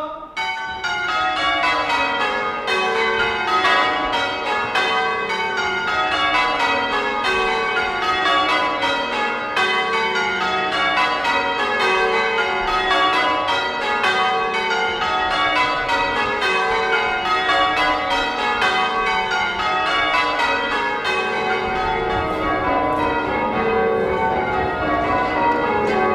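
A ring of newly restored English church tower bells rung full-circle in changes. The bells start about half a second in and then strike steadily one after another in a quick, even stream of overlapping rings.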